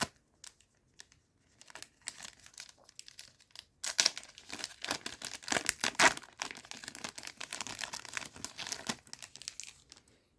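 A trading card booster pack's wrapper being torn open and crinkled in the hands: scattered crackles at first, then a dense stretch of crinkling from about four seconds in.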